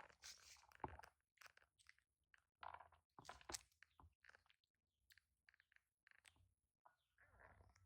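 Faint, irregular crunches and clicks in short clusters.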